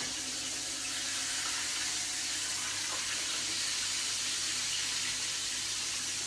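Breaded chicken fried steak sizzling steadily in hot oil in a skillet.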